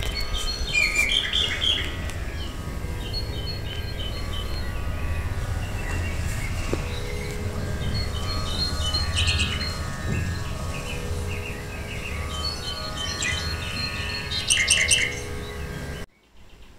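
Birds chirping in repeated runs of short high notes over a steady low rumble, cutting off abruptly near the end.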